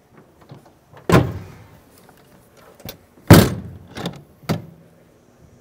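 Rear lift door of a LEER aluminum truck cap being slammed shut: two sharp bangs about two seconds apart, the second the louder, followed by a couple of lighter clunks from the latch handle.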